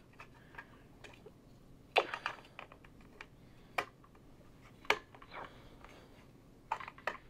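A few sharp, separate clicks and light knocks of plastic and metal parts being handled as an end cap is fitted back onto the end of a tabletop racquet stringing machine's turntable track, the clearest about two seconds in and a pair near the end.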